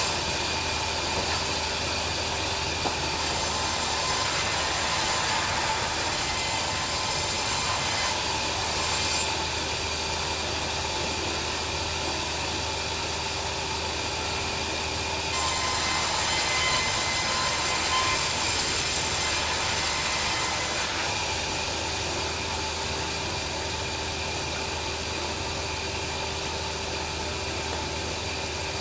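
Bandsaw sawmill running steadily with a low motor hum, its blade cutting through timber in two stretches, a few seconds in and again around the middle, each marked by a louder, hissing rasp.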